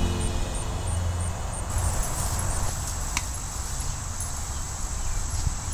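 Insects singing in a grassy summer meadow: a high, pulsing buzz that becomes one continuous high trill about two seconds in, over a low rumble, with a single click about three seconds in.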